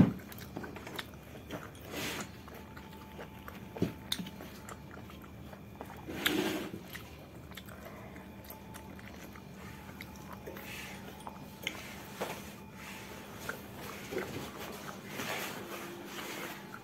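Close-up eating sounds: a person chewing chilli chicken and luchi eaten by hand, with small scattered mouth clicks and smacks and a somewhat louder sound about six seconds in. A faint steady hum runs underneath.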